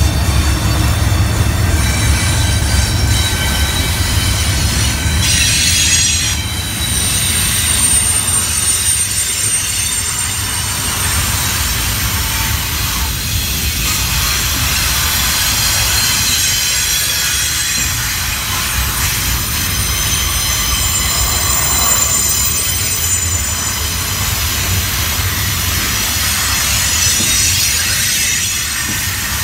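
Slow freight train passing close by: the low rumble of CSX's GE diesel locomotives (ES44AH/ET44AH) for the first few seconds, then double-stack intermodal well cars rolling past with a steady rumble of wheels on rail and high, wavering wheel squeal.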